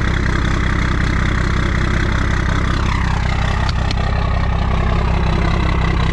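1998 Dodge Ram's 12-valve Cummins 5.9-litre inline-six diesel idling steadily just after a cold start in freezing weather. About three seconds in, a higher whine falls away in pitch, followed by two light clicks.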